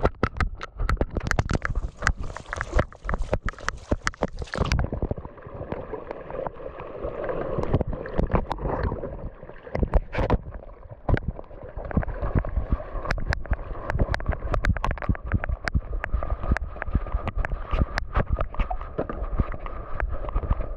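Handling noise of a GoPro strapped to a dog as it moves about: a steady low rumble with wind on the microphone and many sharp knocks and clicks from the jostled camera housing.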